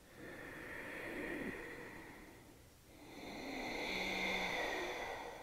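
Ujjayi (resonant) breathing through a narrowed throat: two slow, deep, hissing breaths, each about two and a half seconds long, with a short pause between them.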